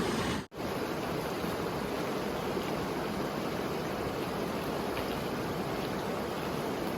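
Steady rush of creek water running, broken by a short gap about half a second in.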